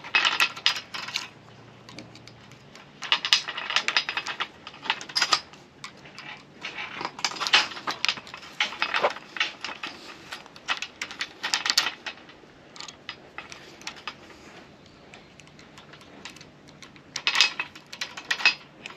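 A small pick prying and unwinding the outer strands of a wire rigging cable's end to fit a Sta-Lok terminal. The loose metal strands click and scrape in short bursts of rapid clicking, with pauses between.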